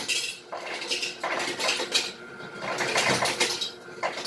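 Kitchen clatter: a cup with ice in it and other dishes knocking and clinking in several irregular rattles as a drink is readied.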